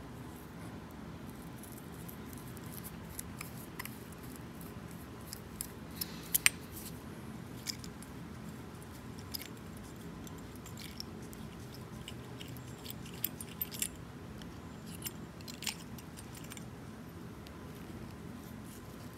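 Scattered light metallic clicks and clinks from the small parts of a mechanical fuel pump as it is unscrewed and taken apart by hand, with a few sharper taps, over a faint steady hum.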